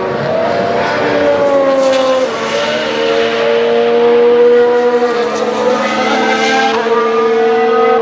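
Red Bull Formula One race car engine running at high revs with a steady, high-pitched tone. The pitch dips about two seconds in and climbs again near the end.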